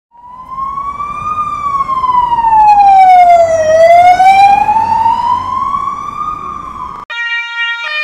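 A police car siren wailing slowly, rising and falling in pitch over a low rumble. About seven seconds in it cuts off abruptly and a stepped siren begins that switches between two pitches.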